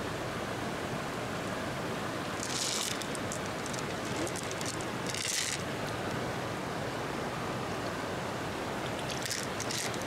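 Steady rush of flowing water, with three brief hissing bursts: near 3 seconds, about 5 seconds in, and near the end.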